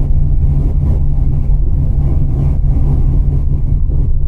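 Steady low rumble inside a moving coach bus: engine drone with a constant low hum, mixed with road noise.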